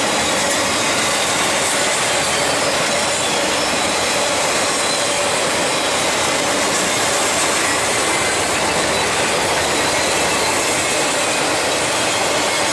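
Norfolk Southern intermodal freight train rolling past: a steady rush of steel wheels on rail, with a faint squeal from the wheels.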